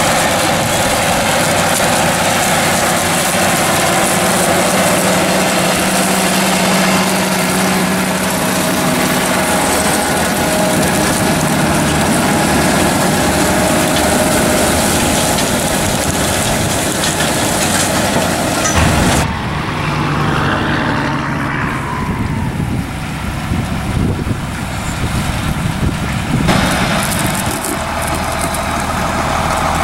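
International 5288 tractor's six-cylinder diesel running steadily under load while pulling a Vermeer 605M round baler through cornstalks, mixed with the baler's machinery noise. The sound's balance shifts abruptly about two-thirds of the way through and again near the end.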